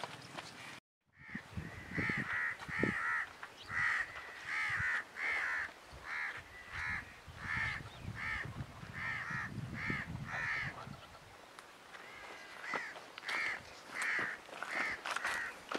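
A bird giving a long run of short, harsh calls, about one and a half a second, with a short pause partway through.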